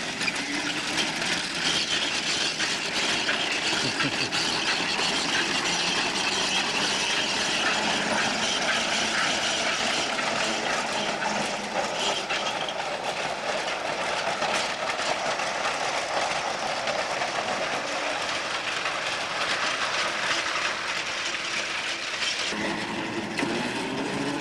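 A small 18-inch-gauge battery-electric open trolley car running on its track, with a steady clatter and rattle of its wheels and running gear. Near the end the clatter drops away and a whine rises in pitch.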